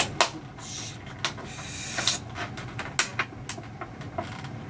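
Chopsticks clicking and tapping against a small sauce dish while soy sauce and wasabi are stirred: a handful of sharp clicks about a second apart, with short rustling noises in between.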